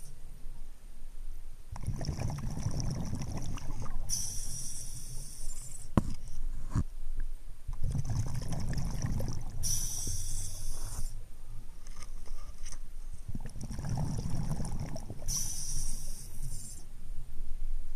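A diver breathing underwater on scuba: three breaths, each a low rumbling burst of exhaled bubbles followed by the high hiss of the regulator on the in-breath. A couple of sharp clicks come near the middle.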